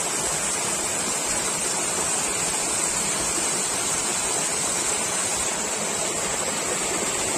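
Hill stream pouring down a small rocky cascade, a steady rushing splash of falling water.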